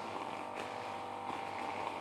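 Steady mechanical hum at a constant pitch, with two faint ticks.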